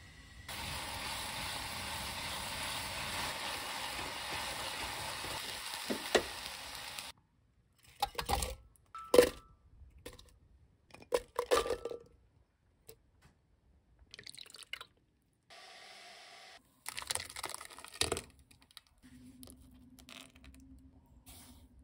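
Rice-flour paste simmering in a stainless saucepan while a silicone spatula stirs it: a steady hiss lasting about seven seconds. Then a few sharp knocks and clatters of kitchen handling. Near the end comes a faint thin stream of liquid pouring into a steel bowl.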